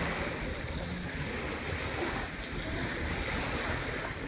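Small waves lapping and breaking on a sandy shore, the wash swelling and easing, with a low rumble of wind on the microphone.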